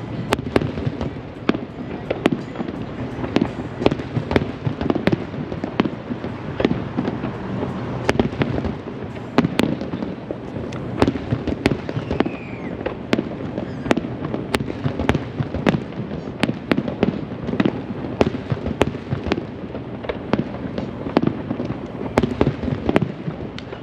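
Fireworks display going off: many shells bursting one after another, several sharp bangs a second over a steady low rumble, with no let-up.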